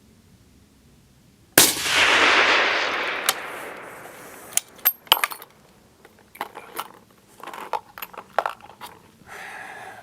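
A single shot from a suppressed Carl Gustaf rifle in 6.5x55 comes about a second and a half in. Its report trails off over about two seconds. It is followed by a series of sharp metallic clicks and knocks from handling the rifle.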